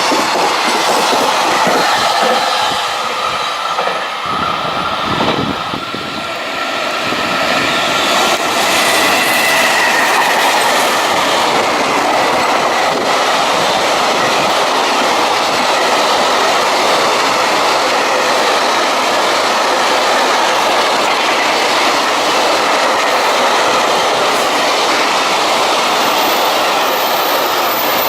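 A long freight train passing close by: electric locomotive and wagons rolling steadily on the rails, wheels clattering over the track with a faint squeal, the noise continuing without a break.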